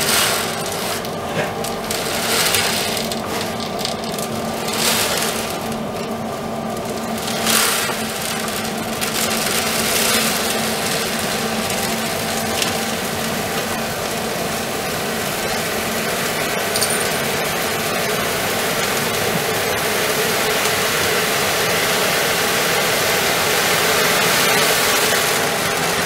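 Automatic cat litter box's rotating drum turning slowly on its motor: a steady mechanical hum with rattling, and a hiss that grows over the second half.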